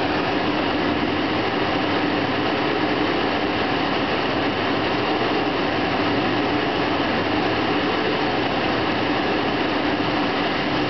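A 1986 Toyota Van's engine running with its thermostatic clutch fan engaged: a steady rush of air from the fan over the engine noise, with a low hum that wavers slightly in pitch. The fan has locked up as the engine reached operating temperature, the sign of a properly working, correctly adjusted clutch fan.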